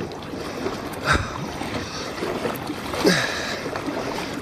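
Kayak paddle strokes dipping into the water twice, about two seconds apart, over a steady wash of water.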